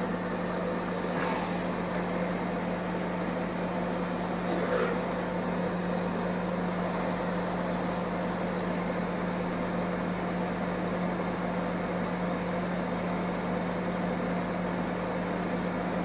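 AFK MWDGE 20 microwave oven running a heating cycle with a cup of water inside: a steady, even hum. It is heating again now that its relay and 5-watt resistors have been replaced.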